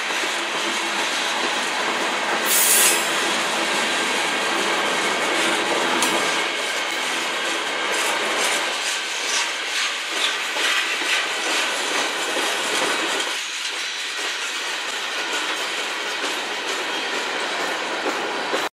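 Freight cars of a CN manifest train rolling past on the rails, a steady noise of wheels on track with scattered clicks. There is a brief loud burst about three seconds in.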